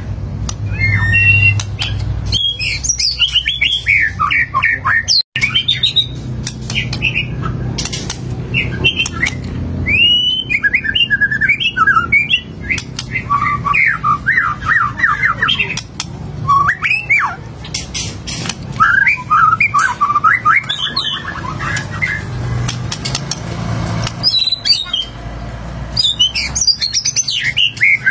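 White-rumped shama singing a long series of fast, varied phrases with short pauses between runs.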